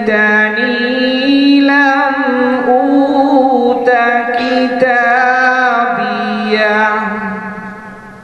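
A male reciter chanting the Quran in melodic tajweed style. He holds long, ornamented notes that waver and slide through one extended phrase, and the phrase fades away near the end.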